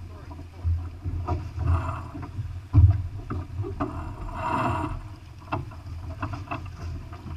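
Wind buffeting the microphone and water rushing past the hull of a sailboat under way, with scattered knocks and a loud low thump a little under three seconds in. A rushing burst, like a wave breaking along the side, comes around four and a half seconds.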